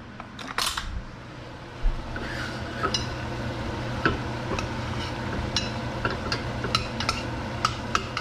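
A utensil stirring rice in a metal pot, clinking against the pot again and again, about once or twice a second from about two seconds in. There is a brief scrape about half a second in, and a steady low hum underneath.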